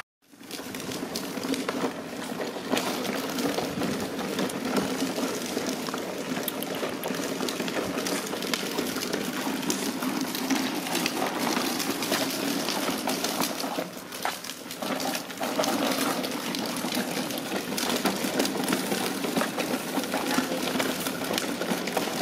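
Hard plastic wheels of a toddler's push-along ride-on car rolling over concrete paving, a steady rumble with a stream of small rattles that dips briefly about fourteen seconds in.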